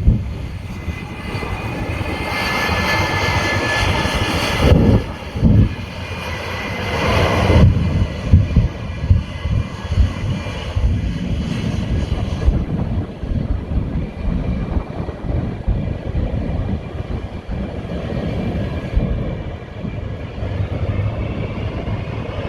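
Jet engines of the ShockWave jet truck roaring under power, loudest for the first seven or eight seconds, with two sharp bangs about five seconds in, then settling into a steady rumble.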